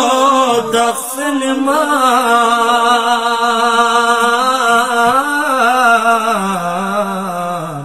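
Unaccompanied male singing of a Balti qasida, a Shia devotional poem, in long, held, wavering notes. The line dips briefly about a second in, and the pitch slides down near the end.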